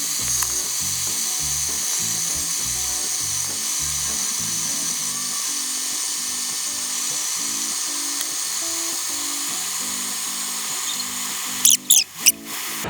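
Background music with a plucked, bouncy bass-and-melody line over a steady high hiss; the hiss breaks up briefly near the end.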